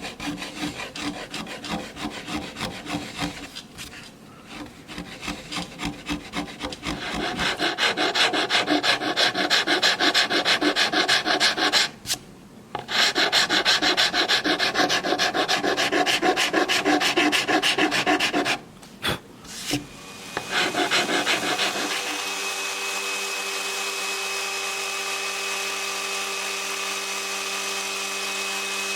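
A hand rasp working wood in quick, repeated scraping strokes, louder from about seven seconds in, with two short pauses. About 22 seconds in the rasping stops and a power tool's motor starts running at a steady pitch.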